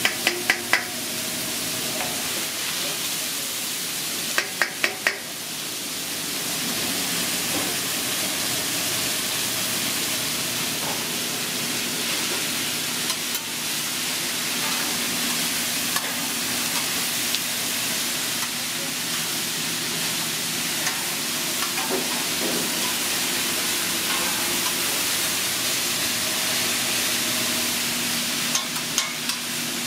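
Sliced onions sizzling on a hot flat-top griddle, a steady frying hiss. Short runs of sharp taps break in right at the start, about five seconds in, and again near the end.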